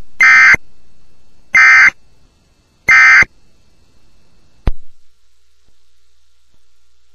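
Emergency Alert System digital data tones (SAME end-of-message code): three short, identical buzzing bursts a little over a second apart, marking the end of the alert. A single sharp click follows about a second and a half after the last burst.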